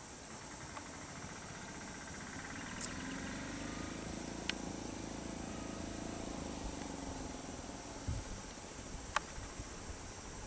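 Steady high-pitched chirring of insects, with a low vehicle engine hum that swells and fades in the middle and a few faint clicks.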